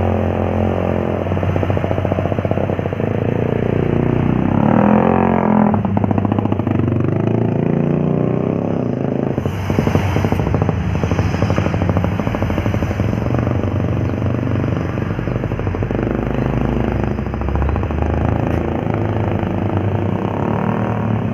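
Heavy vehicle engines running under load as trucks and buses climb an uphill road past the roadside, with an engine note rising about five seconds in.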